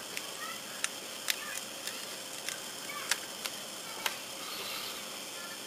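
Hobby knife blade cutting through a decal sheet on a cutting mat: a series of sharp, irregular clicks that stop about four seconds in.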